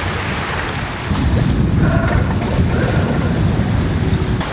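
Wind buffeting the microphone over the rush of the sea aboard a sailboat under way. About a second in, the hiss drops away and a heavier, louder low rumble takes over.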